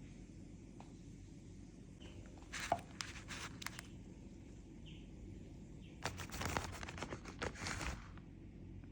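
Pandan leaves being handled: two spells of crinkling and rustling, a shorter one about two and a half seconds in and a longer, louder one about six seconds in.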